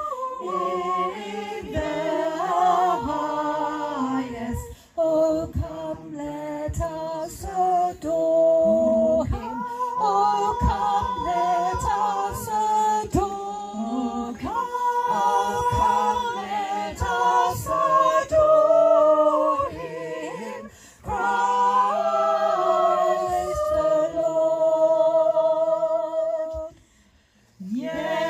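A small group of carol singers singing a Christmas carol together, several voices holding long sung notes. The singing breaks off briefly, almost to silence, about a second before the end, then resumes.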